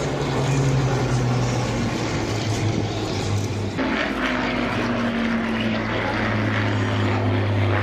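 Propeller-driven aircraft flying overhead: a steady engine drone whose pitch shifts slightly.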